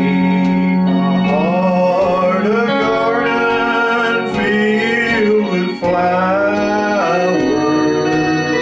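A man singing a slow hymn-like song over held organ chords.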